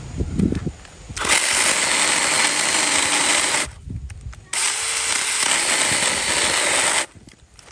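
Small cordless electric chainsaw (GardenJoy 4-inch one-handed mini chainsaw) cutting into a roughly 3.5-inch conifer trunk in two runs, each starting and stopping abruptly, with a short pause between them. The saw sometimes gets caught in wood more than 3 inches thick.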